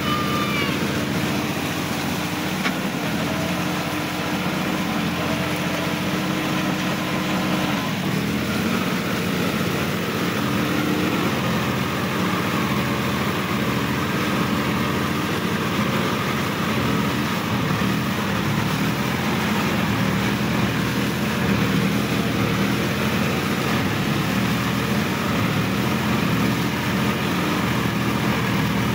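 Sonalika DI-50 RX tractor's diesel engine running steadily as the tractor works through a flooded, muddy paddy field, heard close up from the driver's seat; the engine note shifts about eight seconds in.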